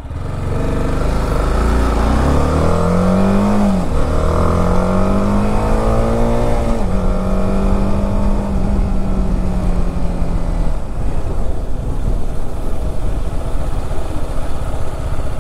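BMW G310 RR's single-cylinder engine accelerating through the gears. The revs climb, then drop sharply at upshifts about four and seven seconds in, hold steady, and fade under a constant low wind rumble after about ten seconds.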